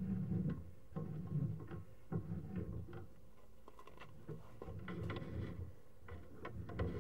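Sewer inspection camera's push cable being fed down the line: uneven low rumbling and scraping in bursts, with scattered clicks and knocks.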